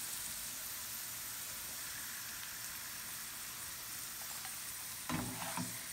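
Battered ivy gourd (tindora) slices deep-frying in hot oil in a small pan: a steady, even sizzle. A brief louder noise comes near the end.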